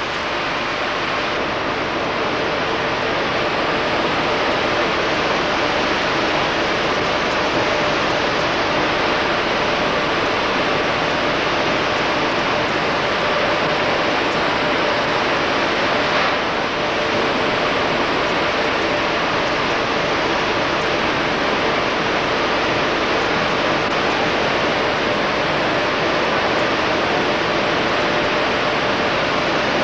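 Steady rushing roar of copper-smelter works, with a faint underlying hum, while molten slag runs from the pouring ladle into a cast-iron slag wagon.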